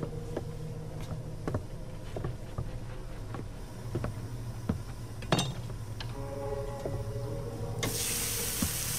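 Scattered metallic clinks and knocks of cookware. Near the end a loud sizzle starts as food hits hot metal over an open fire and fries.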